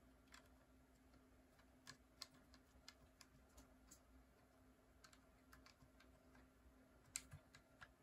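Faint, scattered keystrokes on a custom GK61x keyboard with lubed NovelKey Cream linear switches. Single keys are pressed one at a time at irregular intervals to test each switch.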